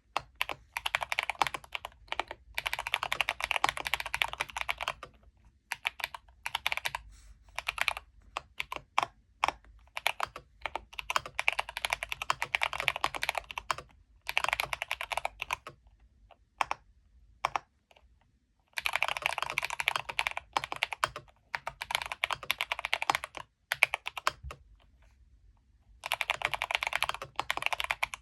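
Typing on a full-size, all-aluminium custom mechanical keyboard with fully lubed switches: fast runs of key presses in bursts of a few seconds, broken by short pauses.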